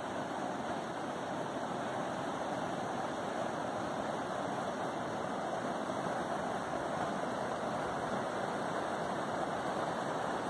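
Steady rushing of river rapids, whitewater churning over rocks.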